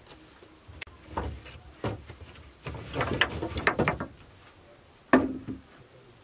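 Wooden poles knocking and clattering against each other and the bed frame as they are handled and laid in place: a few separate knocks, a busy run of clatter in the middle, and one sharp knock, the loudest, about five seconds in.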